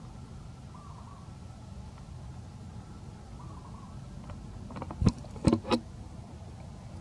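A steady low rumble, with three loud, sharp knocks in quick succession about five seconds in.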